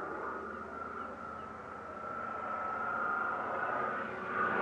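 Rolls-Royce Merlin engine of a Hawker Hurricane Mk IIc in flight, a distant steady drone that grows louder near the end as the fighter comes closer.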